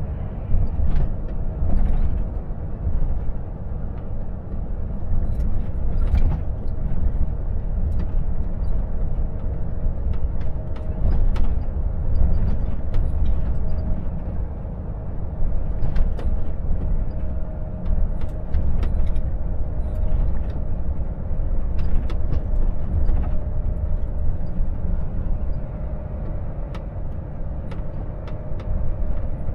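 Volvo FH 460 truck's 13-litre straight-six diesel heard from inside the cab while cruising at about 48 km/h: a steady low engine and road rumble with a faint steady tone above it. Light clicks and rattles come and go throughout.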